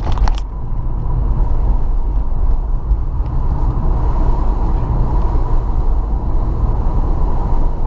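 Steady low road and engine rumble of a car as heard from inside the cabin, with a faint steady high hum above it.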